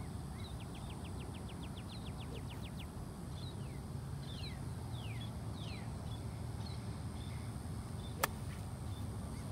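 Golf iron striking the ball once, a single sharp crack about 8 seconds in. Birds call through much of it: a rapid trill of about eight notes a second for some two seconds, then several separate down-slurred whistled notes.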